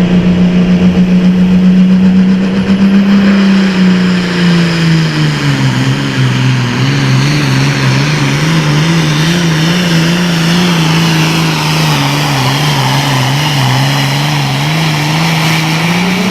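John Deere super farm pulling tractor's diesel engine running at full throttle under load. Its pitch drops about four seconds in as the sled bogs it down, wavers lower, then climbs again just before the sound cuts off.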